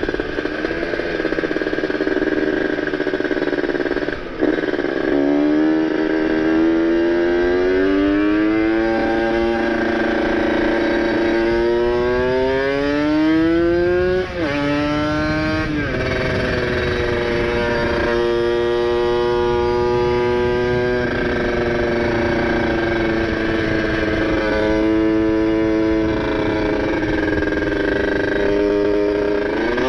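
Kawasaki Ninja RR's ported two-stroke single on a PWK 30 carburettor and ABRT20 exhaust, under way with the engine note climbing slowly. The note drops sharply a few seconds in and again about fourteen seconds in, as at gear changes, then holds a steady note and starts climbing again near the end.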